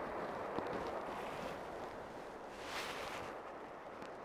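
Steady outdoor rushing noise, with a brief louder whoosh about three seconds in.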